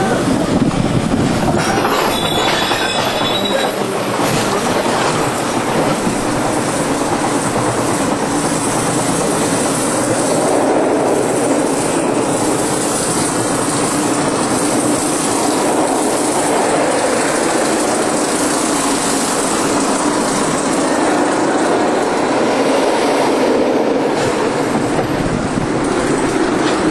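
Runaway Mine Train roller coaster cars rolling on the steel track: a loud, steady rumble of wheels on rail.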